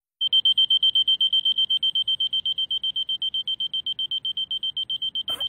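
Digital alarm clock beeping: a single high tone pulsed rapidly, several beeps a second, starting a quarter second in. A brief knock sounds near the end.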